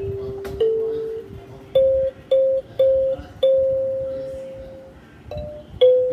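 Kalimba (thumb piano) played slowly, one plucked metal tine at a time, each note ringing and fading. About two seconds in come three short notes on the same pitch, then one long ringing note that dies away before a few more notes near the end.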